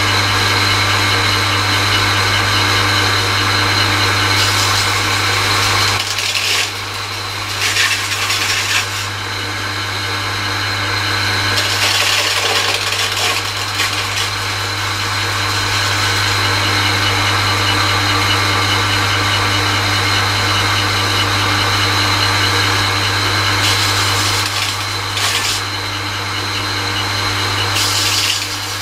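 Homemade slow-speed grinder's electric motor running with a steady hum while a chipped tungsten lathe tool bit is pressed to the wheel, giving several bursts of grinding rasp as it is touched up.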